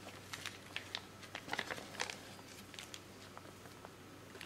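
Faint crinkling and light clicking of a plastic meat tray and its peeled-back film wrap being handled while ground lamb is pushed out of it.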